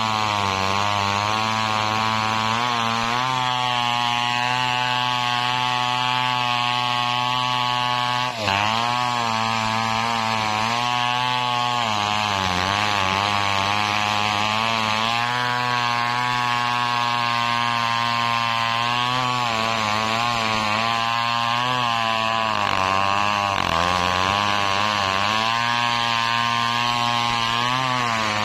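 Engine-driven saw cutting coconut palm wood, running steadily under load, its pitch sagging and recovering again and again as the blade bites into the trunk. A brief dropout about eight seconds in.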